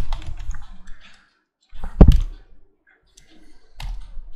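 Computer keyboard keys clicking as text is typed, in short runs separated by pauses. About two seconds in there is one much louder, deeper thump.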